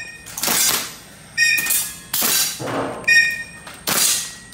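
Gas-blowback airsoft rifles firing single shots in turn, three sharp shots about every second and three-quarters, each with a short hissing tail, alternating with two brief metallic pings of steel targets being hit.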